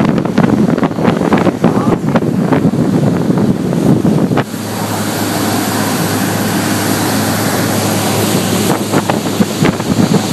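Wind buffeting the microphone over the rush of water and engine of a motor yacht running fast. About four and a half seconds in, the buffeting gives way to a steadier rushing hiss with a low, even hum.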